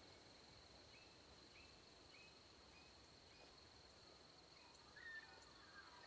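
Faint pre-dawn bush ambience: a steady high-pitched insect trill, with short bird chirps repeating about every half second and a louder bird call about five seconds in.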